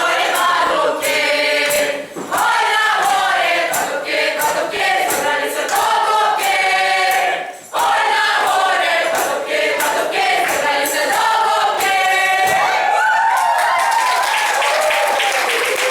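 A group of young voices singing a Ukrainian folk song together, unaccompanied. Clapping breaks in about two seconds before the end.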